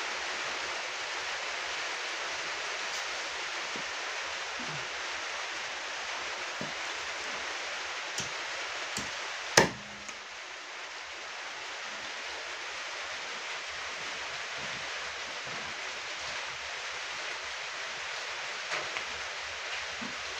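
A large knife chopping raw chicken on a wooden block: a few sharp knocks, the loudest about halfway through, over a steady hiss.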